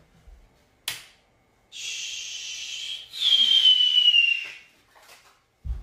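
Whipped-cream aerosol can spraying in two hissing bursts after a click about a second in. The second burst is louder and carries a whistle that slides down in pitch.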